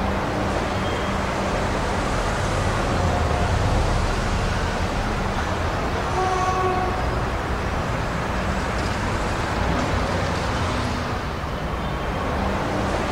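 Traffic jam sound effect: a steady rumble of idling and creeping car engines, with a couple of brief car horn toots a few seconds in and again about halfway through.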